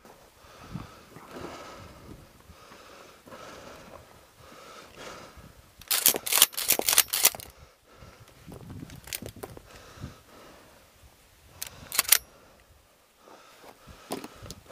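Handling sounds at a pickup truck's rear cab as a shotgun and gear are stowed. There is faint shuffling, then a quick run of sharp clicks and rattles about six seconds in and a couple more near twelve seconds.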